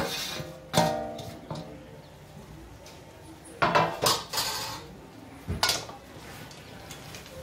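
Metal spoon knocking and scraping against a cooking pan as dry fruits are stirred into a coconut and jaggery mixture: a handful of sharp metallic knocks, the first two ringing briefly.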